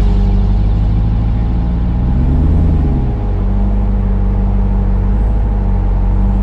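Ram TRX's supercharged V8 running off-road at low speed, a steady low drone that revs up briefly about two seconds in and drops back.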